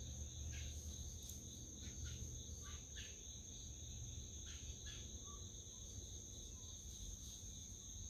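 Steady, faint trilling of an insect chorus, crickets, holding two high even tones, with a few brief faint chirps over it.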